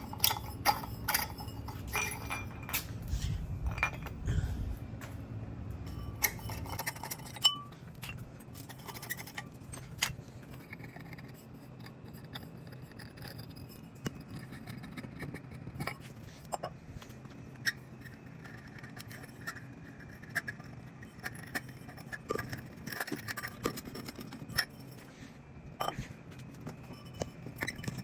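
Metal clinks, taps and scrapes from a Harbor Breeze Sandhurst ceiling fan being taken apart by hand, with sharp clicks scattered irregularly and a low hum during the first several seconds.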